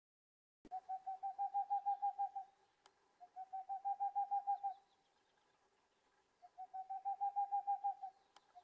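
A night animal calling in three runs of quick, hollow, even-pitched notes, about seven a second. Each run lasts about a second and a half, swelling and then fading.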